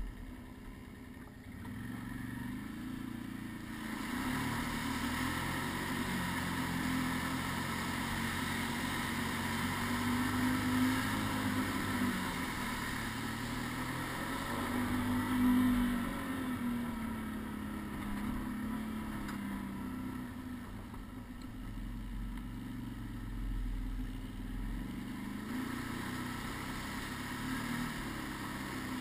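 Quad (ATV) engine running under way, its revs rising and falling several times as the throttle is opened and eased, loudest about halfway through.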